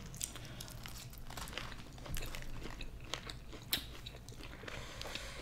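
Close-miked chewing and biting of fried chicken wings: many small wet crunches and mouth clicks, with one sharper crunch a little before four seconds in.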